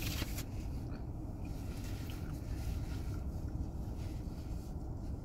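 Steady low rumble inside a car's cabin, with a short click right at the start.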